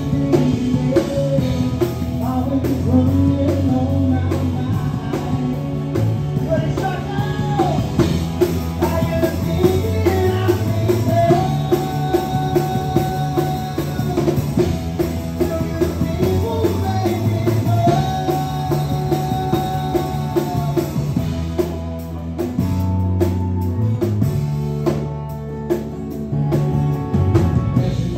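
Live rock band playing: a sung lead vocal over acoustic guitar, electric guitar, bass and drums, with two long held vocal notes.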